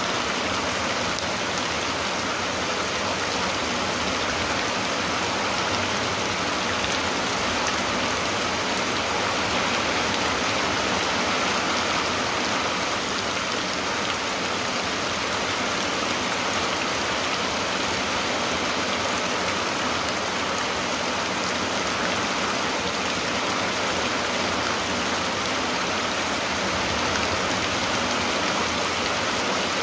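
Steady rain falling, an even continuous hiss that holds at the same level throughout.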